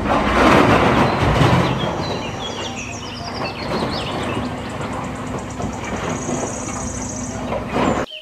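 Large wheel loader's diesel engine running as it tips a bucketload of earth into a dump truck's steel bed. The load pours in loudest during the first second or so, then the engine and trickling material carry on more steadily.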